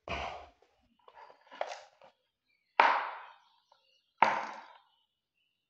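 Handling clatter of plastic resistor holders and crocodile-clip test leads being moved and clipped together on a hardboard sheet: a dull knock at the start, a few light taps, then two louder sharp clacks about three and four seconds in.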